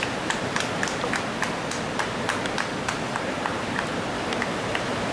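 A fast-flowing river rushing steadily, with a quick run of sharp taps, about three or four a second, that stops near the end.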